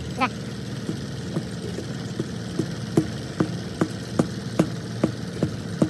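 A motor running steadily, with a sharp knock repeating at an even beat of about two and a half a second. A brief warbling squeak comes right at the start.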